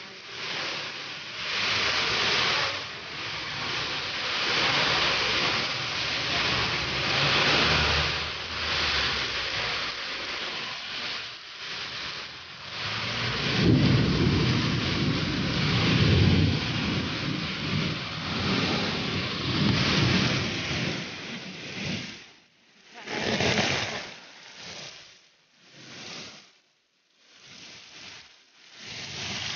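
Heavy rain hissing in swells, with a low rumble of thunder building about thirteen seconds in and lasting several seconds. Near the end the rain noise comes and goes in short swells with brief quiet gaps.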